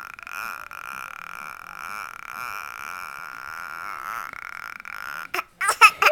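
A baby's vocal noises: a long, steady drawn-out sound, then loud short squeals that slide up and down in pitch near the end.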